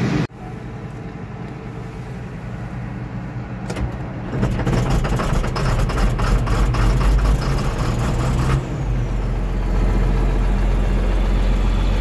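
Older John Deere diesel tractor engine being started in cold weather. It cranks, catches about four seconds in with a puff of black exhaust smoke, runs unevenly for a few seconds, then settles into a steady idle. Heard from inside the tractor cab.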